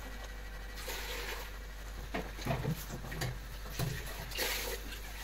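A person eating: a handful of short, irregular slurps and mouth noises, some with a brief low hum.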